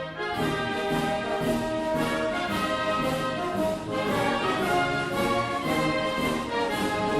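Orchestral music led by brass, with a steady beat and sustained chords that change every second or so.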